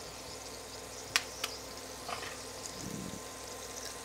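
Low steady sizzle of greens frying in a pan, with two sharp clicks in quick succession a little after a second in.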